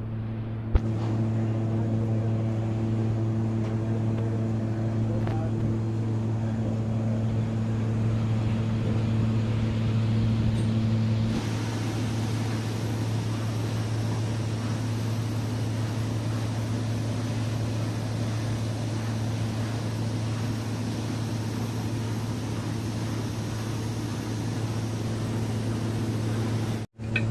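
Steady mechanical hum of running machinery with a strong low drone, and a single sharp click under a second in; the hum changes colour about eleven seconds in.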